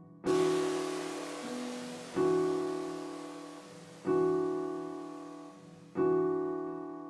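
A keyboard chord loop, played in the Launchpad music app, sounding four times about every two seconds, each chord fading away before the next. A hissing wash comes in with the first chord and dies away over about two seconds.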